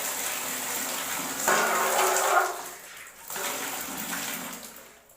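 Water running and splashing as raw goat lung is washed, loudest about a second and a half in, then easing off toward the end.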